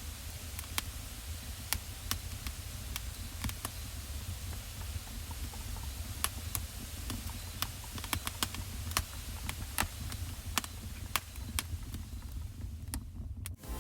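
Irregular, sharp clicks and crackles, a few per second and unevenly spaced, over a low steady rumble.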